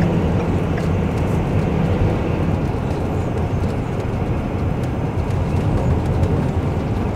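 Class C motorhome driving along a town road: a steady engine and road rumble heard from inside the cab.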